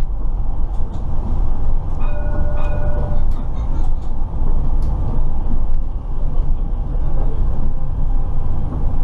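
Cab of an Alstom Citadis Dualis tram-train running at line speed: a steady, loud low rumble of wheels on rail and running gear. About two seconds in, a short steady tone sounds for about a second.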